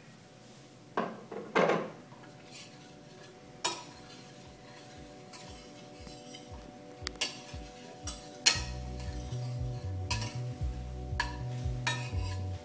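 Metal utensil clinking and scraping against a pan as butter is stirred in, with a few sharp knocks. Background music with a steady beat runs underneath, its bass getting louder about two-thirds of the way through.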